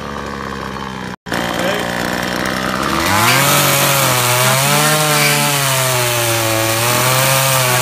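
Two-stroke chainsaw carving into a large ash trunk. It runs steadily, cuts out briefly about a second in, then revs up about three seconds in, its pitch rising and falling as the chain bites into the wood.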